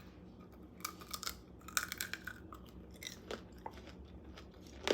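Crunching bites into a grape tanghulu, its hard sugar-candy shell cracking and being chewed, in two bursts of crackling about a second and two seconds in, then a few single crunches.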